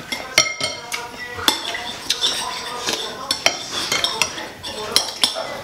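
Metal spoons and chopsticks clinking and scraping against soup bowls while eating noodle soup, in quick irregular clinks.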